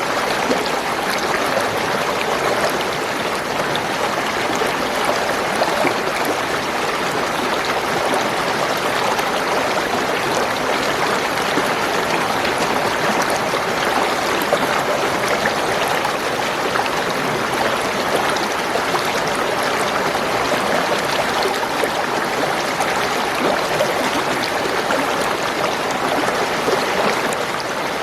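Spring water running and gurgling over stones in a small stream, a steady, unbroken rush with fine bubbling detail.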